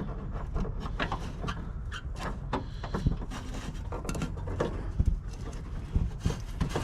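Irregular clicks and knocks of a door-handle linkage rod being worked into its retaining clip inside a car door, metal parts tapping and rattling as it is fitted.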